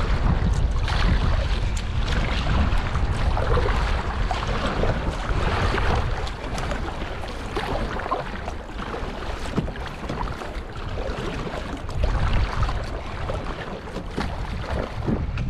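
Swift, choppy river water rushing around a kayak, with wind buffeting the microphone as a low rumble and the splashes of double-bladed paddle strokes. The rush of water eases somewhat about six seconds in.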